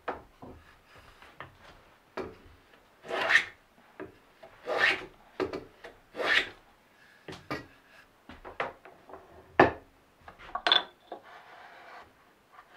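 Metal hand plane shaving a wooden edge in separate strokes, with three longer, louder passes in the first half and shorter scrapes between. A couple of sharp wooden knocks near the end.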